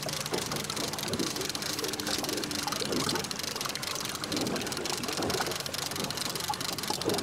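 Wind and choppy water slapping against a small boat's hull while a sea-fishing reel is wound in. A low steady hum stops about three seconds in.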